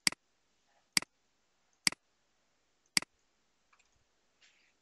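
Computer mouse button clicking four times, about one click a second, each a sharp press-and-release.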